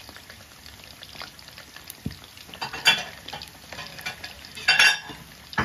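Chicken wings deep-frying in hot oil in a wok on high heat, a steady sizzle with sharp crackling pops about three seconds in and again near the end. This is the final high-heat stage of frying that drives the oil out of the chicken.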